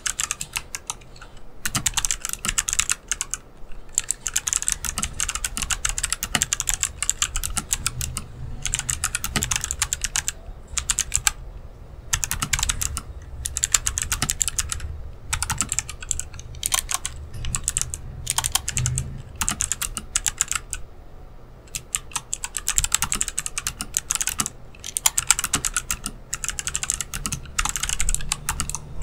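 Continuous fast typing on a Rakk Lam-Ang Pro mechanical keyboard fitted with Kailh Box White clicky switches: dense runs of crisp key clicks broken by brief pauses every few seconds.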